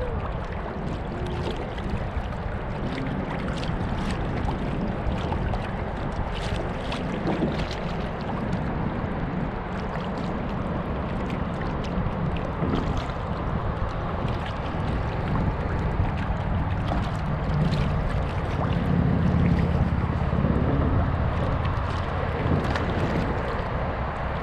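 Wind buffeting the microphone in a steady low rumble, with choppy water slapping and splashing around the kayak.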